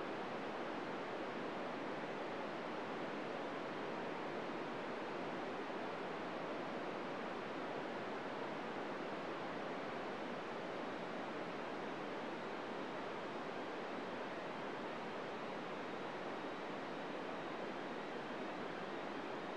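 Steady hiss of an FM radio receiver tuned to the ISS downlink on 145.800 MHz with its squelch open. No slow-scan television tones are heard, only receiver noise with no signal coming through.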